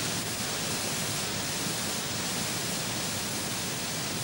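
Canal lock water gushing through an opened gate paddle and crashing into the chamber below: a steady, unbroken rush of white water as the lock passes water from one level to the other.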